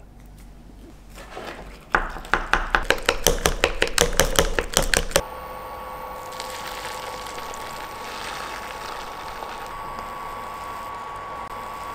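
Raw eggs and vegetables being beaten briskly in a glass measuring jug, the utensil clicking against the glass about five times a second for roughly three seconds. Then a steady hum with a faint sizzle as oil heats in a nonstick pan on an electric hob.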